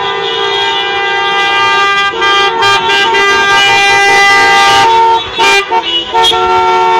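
Many car horns honking at once in long held blasts at several different pitches, breaking off briefly a few times near the end.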